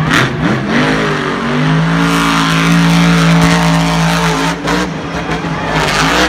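Monster truck engine revving hard. It climbs in pitch about a second in and holds at high revs for about three seconds, then drops back and revs up again near the end.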